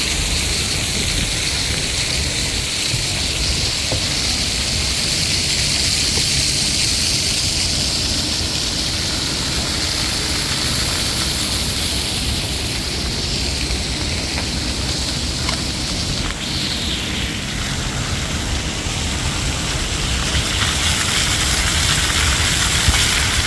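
Water fountain splashing: a steady rushing hiss of falling water.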